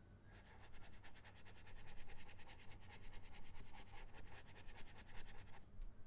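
Rapid, evenly repeated scratchy strokes of a drawing or painting tool worked back and forth on a surface, about eight a second. They start just after the beginning and stop abruptly near the end.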